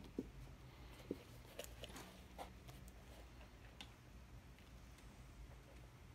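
Faint, scattered small clicks and taps of objects being handled on a work surface, over a low steady hum.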